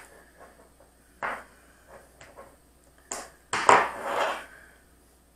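PVC rocket parts being handled on a tabletop: a few short knocks and scrapes, and a louder rustling scrape about three and a half seconds in.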